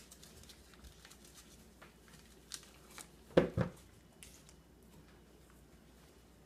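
Paper wrapper being peeled off a stick of butter, with faint crinkles and ticks, and a loud double knock on the counter about three and a half seconds in.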